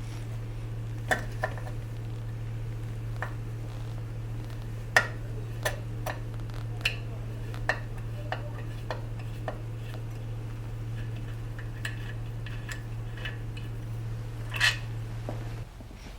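Scattered sharp metal clinks and taps of hand tools and small parts being handled while a chainsaw is taken apart, over a steady low hum that cuts off near the end.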